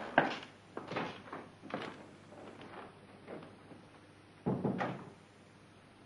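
A door being handled: a string of knocks and thuds, the loudest just after the start and a heavier cluster about four and a half seconds in.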